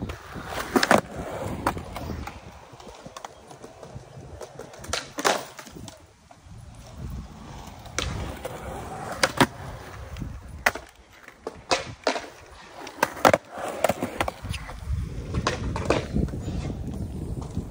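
Skateboard wheels rolling on concrete with a low rumble, broken by a string of sharp clacks and knocks of the board hitting the ground, scattered irregularly through the stretch.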